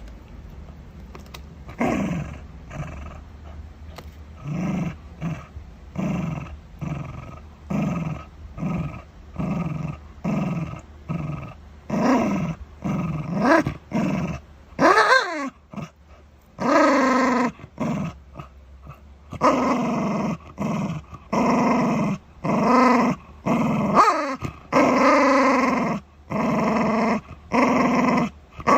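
Shiba Inu growling in a long run of short bursts as it guards its dental chew, a sign of food guarding. About halfway through comes a wavering cry that rises and falls, and after it the growls come longer and closer together.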